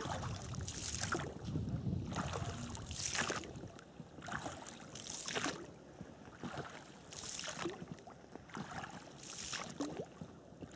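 Oars of a rowboat dipping and pulling through the water in a steady rowing rhythm, a splash about once a second, every other one louder.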